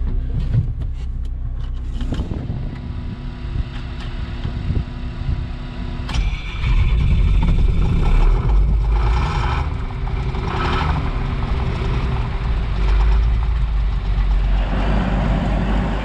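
A John Deere 4420 combine's diesel engine being started in freezing weather. It catches about six seconds in, after a few clicks, and then runs on loud and steady.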